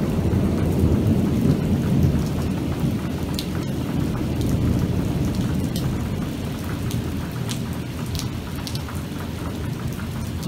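Heavy downpour pouring onto flooded asphalt, a dense steady hiss and splash with a deep rumble underneath that eases slightly partway through. A few sharp drips land close by.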